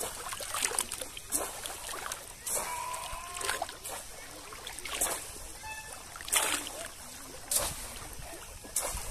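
Repeated water splashes, one every second or so, as a person wading in a river strikes the water while working a bamboo plunge-basket fish trap.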